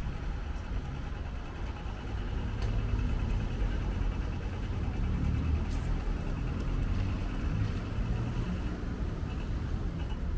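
City street traffic: passing cars and engines in a steady low rumble that swells about two seconds in, with a faint rapid ticking above it.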